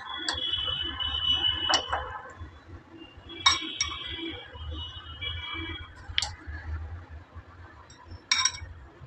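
Steel serving spoon knocking and scraping against a ridged glass plate as fish curry is served onto it: about six sharp clinks, each with a brief ringing of the glass.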